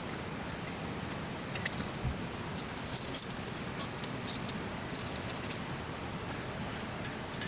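Small metal objects jingling and clinking in several short bursts through the middle few seconds, over a steady background hiss.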